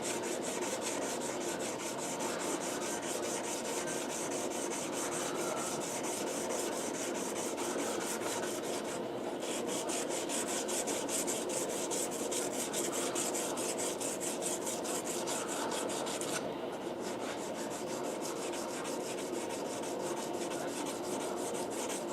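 Hand sanding a leaf-spring steel knife blade with abrasive paper backed by a wooden straight edge to give it a matte finish. Quick, even back-and-forth rasping strokes, several a second, with a brief pause about nine seconds in and another about three quarters of the way through.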